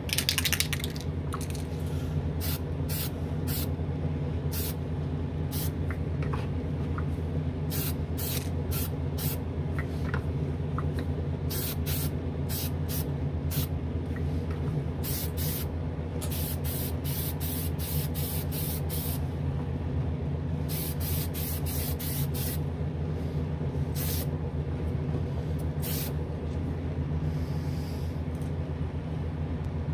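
Testors Extreme Lacquer aerosol spray can hissing in dozens of short bursts, some in quick clusters, as light coats of lacquer are misted onto a model car body. Underneath runs the steady low hum of the spray booth's exhaust fan.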